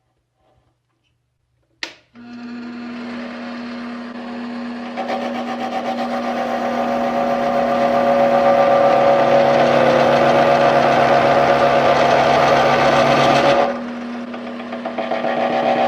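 A switch clicks about two seconds in and a small lathe's motor starts running with a steady hum. About five seconds in it gets louder as the tool takes an interrupted cut in a steel freehub body, drops back for a moment near the end, then picks up again.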